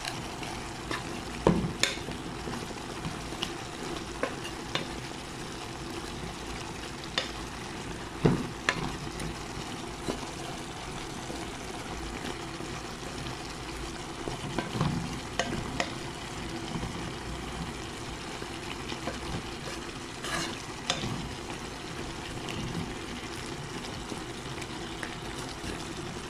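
Bell pepper strips sizzling in a frying pan while being stirred with a spatula. The spatula knocks and scrapes against the pan now and then, loudest about a second and a half in and again about eight seconds in.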